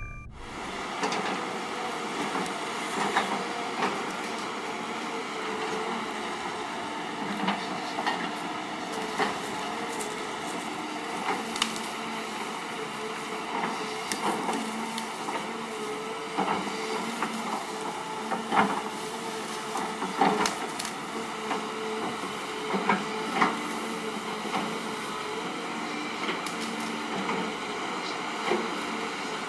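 Caterpillar 320 hydraulic excavator running steadily while digging into a brushy dirt bank, with irregular sharp knocks and cracks as the bucket works through soil and branches.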